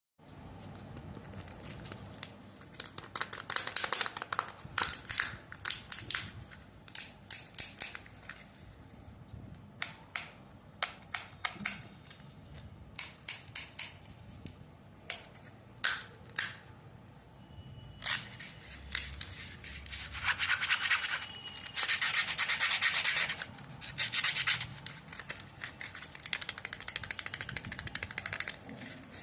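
Kinder Joy egg wrappers being handled and unwrapped: crinkling and crackling in many short bursts, then a longer stretch of continuous crinkling about two-thirds of the way through.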